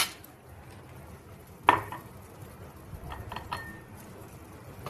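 Kitchen utensils clinking: a sharp clink at the start, a louder ringing clink about 1.7 s in, then three light taps about a second later.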